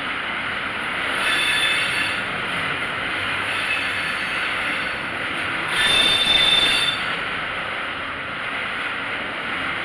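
Tank cars of a freight train rolling past with steady wheel-on-rail noise and a high-pitched wheel squeal, which is loudest for about a second around six seconds in.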